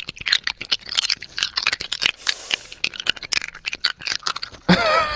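A hard cough drop clacking against teeth and being moved around in the mouth right up against a sensitive microphone: a fast, irregular run of wet clicks and rattles. There is a short hiss about two seconds in, and a voice comes in near the end.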